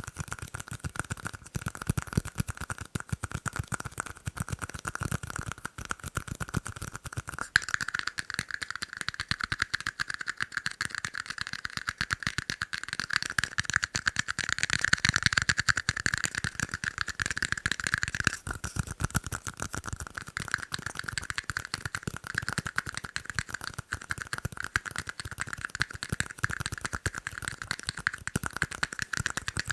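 Fast tapping on tiny cups: a dense, unbroken stream of quick clicks over a steady high ring from the cups, a little louder in the middle stretch.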